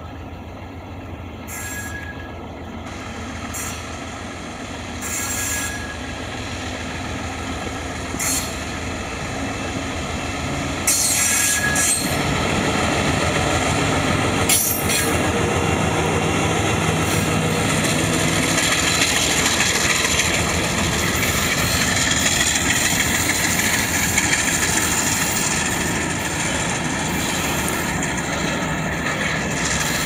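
ALCo RSD-16 diesel-electric locomotive with its 16-cylinder ALCo 251 engine, hauling an empty coal train and growing louder as it approaches. It passes close by about halfway through, and then the empty open wagons roll past with a steady loud rumble of wheels on the rails.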